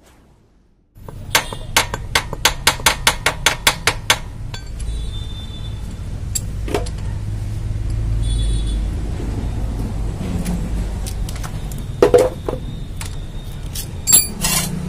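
Hand tools clinking on metal while the engine-oil drain bolt of a TVS XL100 moped is worked loose: a quick run of about a dozen sharp metallic clicks in the first few seconds, then a few separate clinks, over a steady low background rumble.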